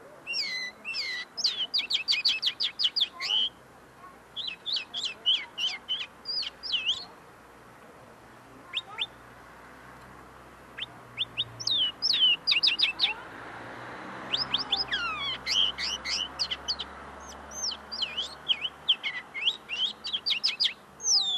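Common linnet singing: rapid twittering phrases of fast, high chirps and trills, given in several bursts with short pauses between them. The song is not yet fully formed; the bird is still finishing clarifying its notes.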